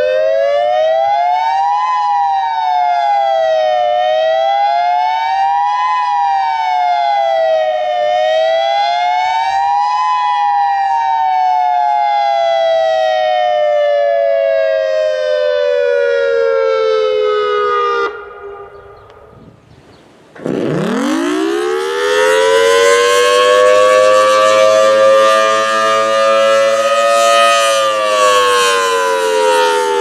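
Federal Signal Modulator II electronic tornado siren sounding a two-tone wail that rises and falls every two seconds, then glides slowly down and cuts off. After a short gap, a single-horn outdoor warning siren winds up from a low pitch to a steady tone and starts to wind down near the end.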